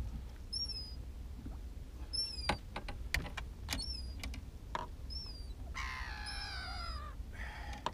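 A bird repeats short high chirps every second or so, with a longer descending call about six seconds in. A few sharp clicks and knocks in the middle come from handling the landing net and the hooked perch aboard the boat.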